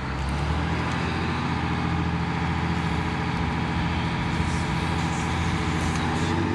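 Boat engine running at a steady drone, even and unchanging, with the rush of wind and water over it.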